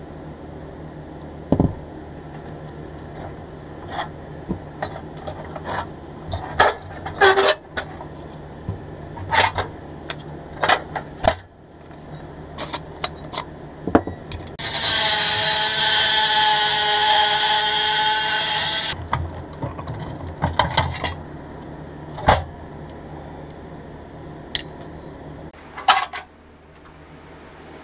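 Hand-tool disassembly of a pressed-steel Tonka loader: scattered metal clicks, knocks and clinks as pliers work the axle ends and the wheels and steel parts are handled on the bench. About fifteen seconds in, a power tool runs loudly and steadily for about four seconds.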